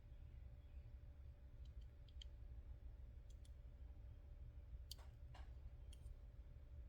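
Near silence with a few scattered light clicks and taps, as small die-cast toy Jeeps are handled. The two clearest clicks come about five seconds in, over a low steady hum.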